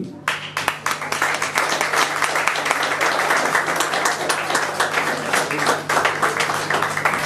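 Audience applauding: dense, continuous clapping that starts just after the introduction ends and thins out near the end.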